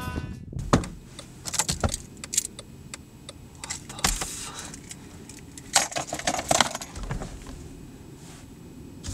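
Car keys jangling and clicking in bursts as they are handled at the ignition, after a single sharp thump under a second in.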